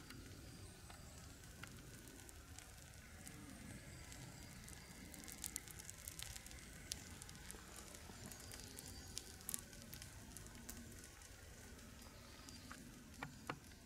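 Bushcraft torch of rolled birch bark and tree resin burning, crackling faintly, with a cluster of sharp little pops in the middle and a few more near the end.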